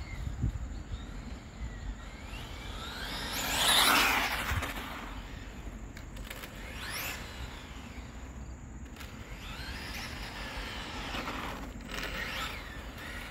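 Electric RC car's 5.5-turn motor whining as the car speeds past several times, each pass a rising then falling sweep, the loudest about four seconds in.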